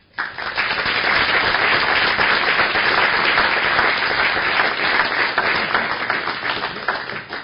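Audience applauding: many people clapping, starting suddenly, holding steady for several seconds and fading out near the end.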